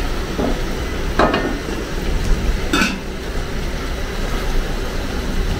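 A spoon stirring a pot of vegetable soup, with two brief scrapes against the pot, about a second in and near the three-second mark, over a steady low background noise.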